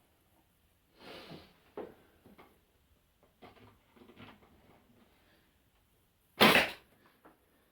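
Wooden boards being handled, with soft rustles and light knocks and clicks, then one loud sharp bang about six and a half seconds in.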